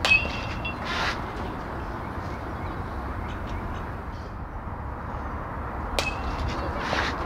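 A youth baseball bat hits a pitched ball twice, about six seconds apart. Each hit is a sharp ping with a brief ringing tone, followed about a second later by a softer, noisier impact.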